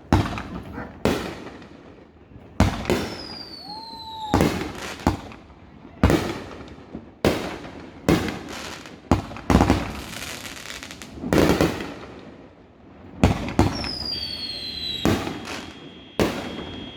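Aerial fireworks bursting in quick succession, about one bang a second, each with a trailing rumble. A few falling whistles rise above the bangs.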